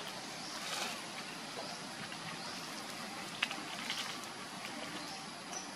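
Steady outdoor background hiss with faint high chirps, a brief rustle near the start and a few sharp clicks about three and a half and four seconds in.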